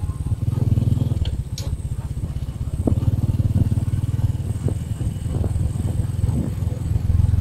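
Motorcycle engine running steadily as the bike rides along the highway: a fast, even low throb, with a few light clicks over it.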